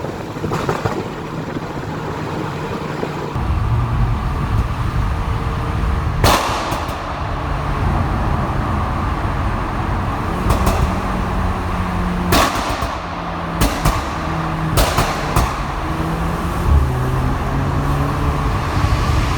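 Tuned Audi TT Mk2's turbocharged 2.0 TFSI four-cylinder running, its note stepping up and down, with about half a dozen sharp exhaust bangs from a bang/anti-lag tune, the first about six seconds in and a cluster from about twelve to seventeen seconds. The engine gets louder about three seconds in.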